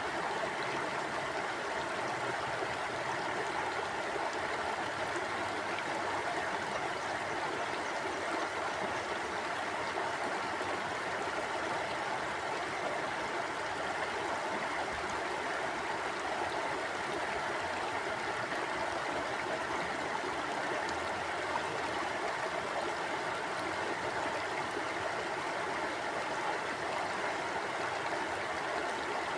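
Mountain river flowing steadily over rocks, an even rushing and gurgling of water with no breaks.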